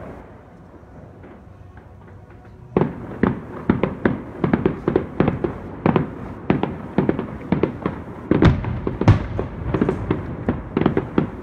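Aerial fireworks shells bursting. After a quieter start, a rapid series of bangs begins a little under three seconds in, coming about three a second and continuing without a break.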